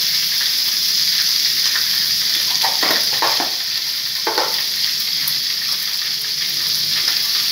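Hot ghee and butter sizzling steadily in a small tempering pan, with dried fenugreek leaves (kasuri methi) frying in it. A few short clicks come about three to four and a half seconds in.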